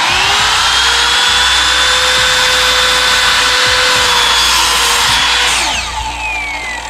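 Electric chop saw starting with a quickly rising whine, running at full speed for about five and a half seconds while it cuts a 1x4 trim board, then released and spinning down with a falling whine.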